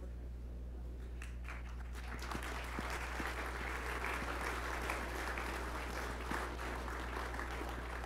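Audience applauding: a few scattered claps at first, building into steady applause about two seconds in and thinning near the end, over a steady low hum.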